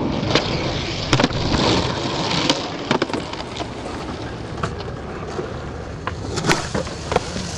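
Skateboard wheels rolling over concrete, with several sharp clacks of the board popping and landing, the loudest near the end.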